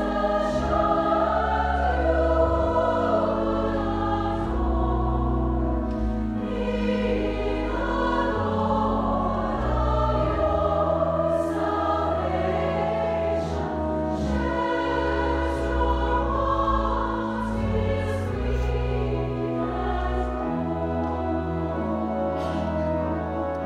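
A large mixed choir singing held chords with instrumental accompaniment over a deep, sustained bass line.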